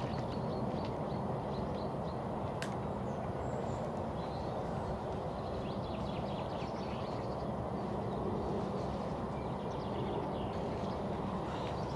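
Outdoor riverbank ambience: a steady low rumble with a faint hum, and small birds chirping faintly in the background. A single sharp click sounds a little under three seconds in.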